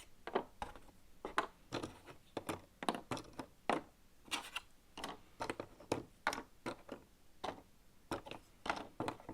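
Cardboard jigsaw puzzle pieces being turned over and set down on a table one after another: a run of light, irregular clicks and taps, two or three a second.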